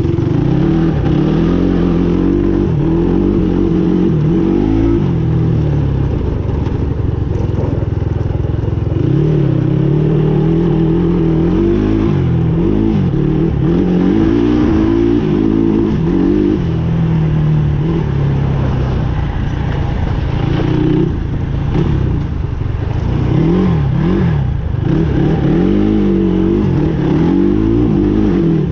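Adly Hurricane 500 quad's engine under way, its pitch rising and falling again and again as the throttle is opened and eased off.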